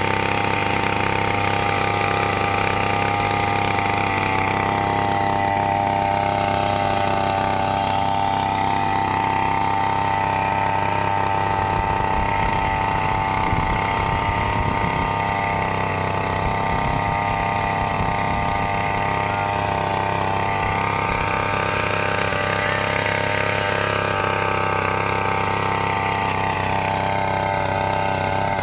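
Brush-cutter engine running fast and steady, driving a rotary tiller attachment through dry soil; its pitch sags briefly a few times as the tines bite in.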